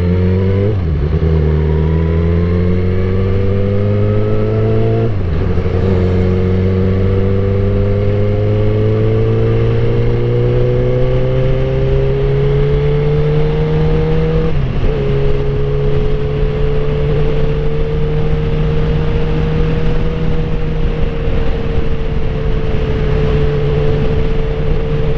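Suzuki GSX-R1000 K8's inline-four engine accelerating up through the gears: the pitch climbs and drops sharply at upshifts about a second in, about five seconds in and a little past halfway, then holds nearly steady at a cruising speed.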